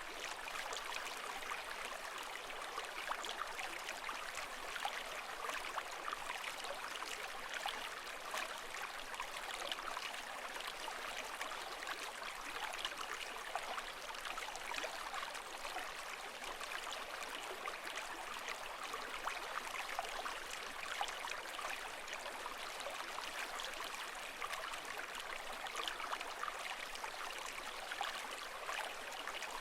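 Water ambience: a steady hiss of moving water with fine splashing and bubbling crackle, even in level, with no waves rising and falling.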